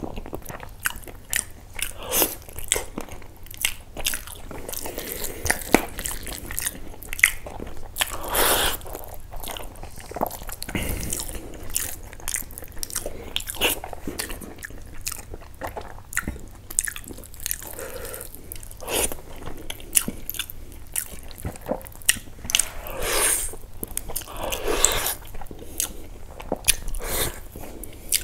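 Close-miked, wet mouth sounds of a person chewing and biting into mutton curry and rice eaten by hand: quick smacking clicks throughout, with a few longer, louder wet sounds.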